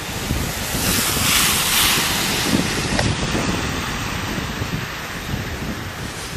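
Outdoor wind buffeting the microphone with a low rumble, over a steady rushing hiss that swells louder for about two seconds, starting about a second in.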